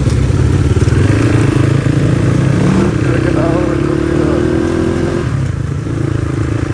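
Crossfire RM250 motorcycle engine running while riding, its pitch holding steady and then dropping about five seconds in as the revs fall.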